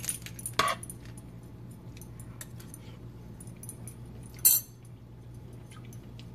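Light metallic clinks of a utensil against a frying pan near the start, then scattered small clicks and a brief sharp jingle of small metal objects, such as keys, about four and a half seconds in, over a low steady hum.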